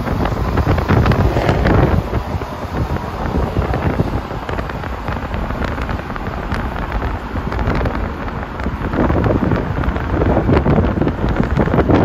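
Wind buffeting the microphone in a loud, rumbling, uneven rush, with road traffic beneath it.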